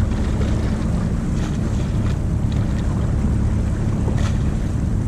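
A dinghy's outboard motor running steadily, with wind noise on the microphone.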